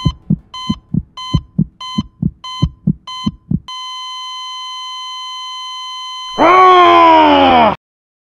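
Patient heart monitor beeping fast, about three beeps a second, each with a low heartbeat thump under it, then going into a steady flatline tone about three and a half seconds in: the sign of the heart stopping. Near the end a loud sound falling in pitch cuts in for about a second and a half.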